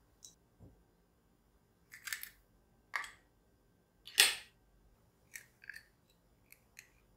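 Eggshells clicking and tapping while eggs are separated by hand: a string of light taps, the loudest a sharp crack with a short ring about four seconds in as an egg is broken, then small crackles as the shell is pulled apart.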